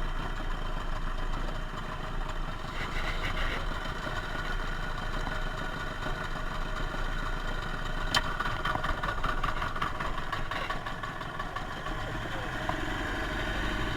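Small boat engine running steadily, with one sharp click about eight seconds in.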